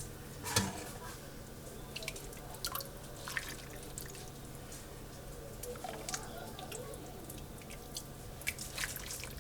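Chicken noodle soup broth dripping and splashing as it is spooned or ladled, with scattered light clicks and taps.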